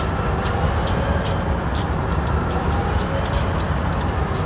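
Union Pacific diesel locomotive engine idling steadily with a deep rumble, a light regular ticking about twice a second and a faint high whine, while it pours out heavy exhaust smoke.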